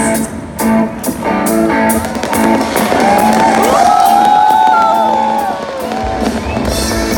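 Music with guitar, including sliding pitch bends, played over a fireworks display, with scattered firework bangs beneath it.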